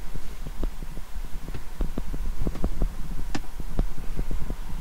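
Irregular soft thumps and clicks, several a second, with one sharper click about three and a half seconds in, over a steady low hum: handling noise of a handheld camera.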